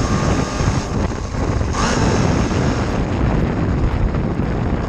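Wind rumbling on the microphone, with a faint thin whine from a radio-controlled car's electric motor in the first second.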